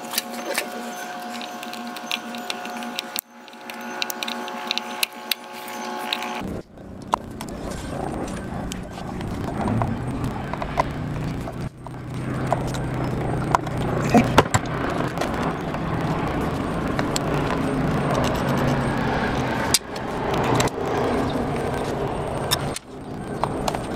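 Small metal clicks and clinks of hand work on an aircraft wheel's axle and brake hardware. Behind them runs steady engine noise from helicopters flying nearby, which grows louder and fuller after about six seconds.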